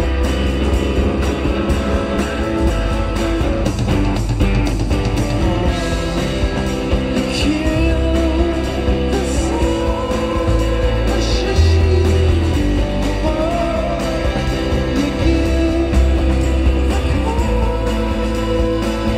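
Live rock band playing: electric guitar, bass and drums, with a voice singing over the instruments.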